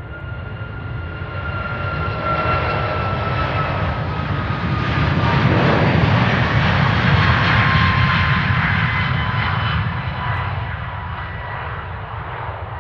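Four Rolls-Royce Trent 556 turbofans of an Airbus A340-600 at takeoff thrust as the jet rolls past: the engine noise swells to its loudest about six to eight seconds in and then eases, with a whining tone that slides down in pitch as it goes by.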